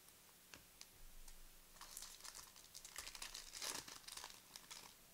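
A trading-card pack's foil wrapper being torn open and crinkled: a few light clicks, then crackling from about two seconds in, loudest near the end.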